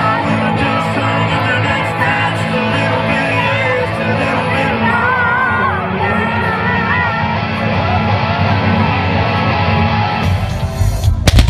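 Live band music at a large concert, with the crowd singing and yelling along. Right at the end, a rapid string of sharp cracks breaks in: automatic gunfire.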